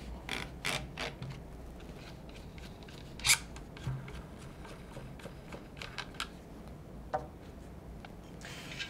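Scattered small metallic clicks and knocks as parts of an Eternal Attacker FX-3 12-gauge shotgun are handled while the bushing that holds the barrel is taken off. The loudest click comes about three seconds in.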